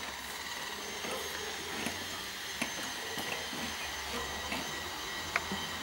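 Jawa two-stroke motorcycle engine idling: a steady low hum with scattered light ticks.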